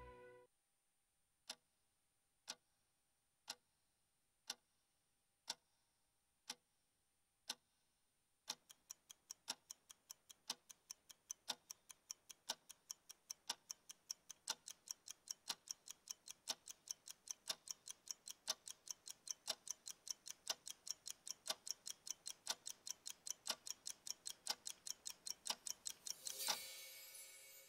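Quiet clock-ticking sound effect: single ticks about once a second, then from about eight seconds in a steadier tick-tock at about two ticks a second, ending with a brief louder sweep near the end.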